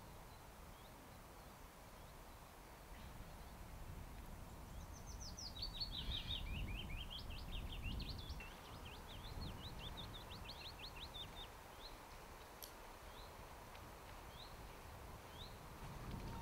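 A small songbird singing a long, rapid run of short sharp notes about four seconds in, falling in pitch at first and then holding level, followed by a few single chirps. Underneath is a faint, steady low rumble of outdoor background noise.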